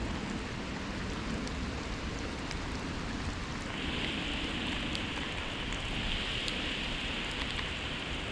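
Steady rain, with scattered ticks of single drops; a higher hiss comes in about halfway through.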